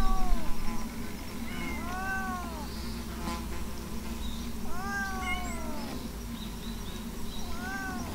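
A cat meowing four times, about two to three seconds apart, each meow drawn out and rising then falling in pitch.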